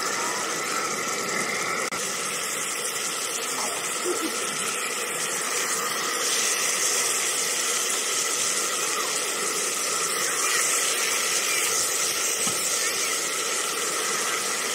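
Burgers, mushrooms and a large rump steak sizzling on a hot Robens Bighorn cast-iron pan: a steady hiss that grows a little louder about six seconds in.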